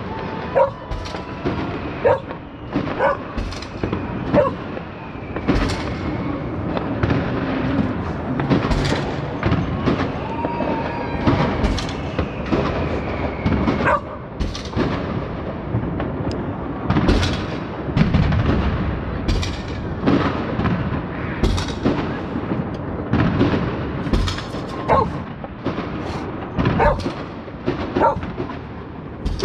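Many fireworks going off, with a steady run of bangs and crackles over a continuous rumble of distant explosions, and a few whistling rockets. A dog barks now and then among the bangs.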